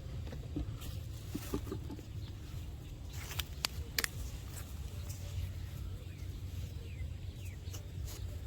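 Outdoor field sound: a steady low rumble, a few sharp clicks about three and a half to four seconds in, and faint short falling bird chirps near the end.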